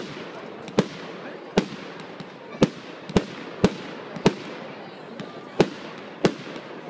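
Fireworks going off: a string of about nine sharp bangs at uneven intervals of half a second to a second, over a continuous hiss.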